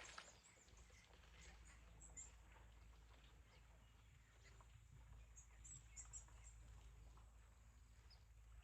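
Near silence: faint outdoor ambience with scattered high, short bird chirps, a cluster of them about five to six seconds in.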